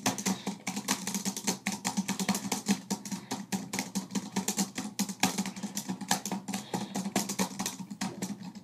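Typing on an HP laptop keyboard: a fast, irregular run of key clicks, over a low steady hum.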